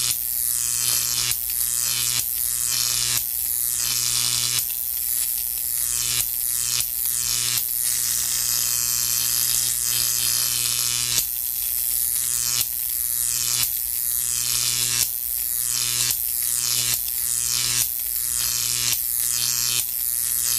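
Electric chair sound effect: a loud crackling electrical buzz over a steady low hum, surging in pulses about once a second, with a few longer unbroken stretches in the middle.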